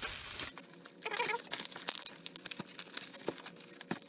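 Bubble wrap crinkling and rustling as hands pull it off a box, in irregular crackles.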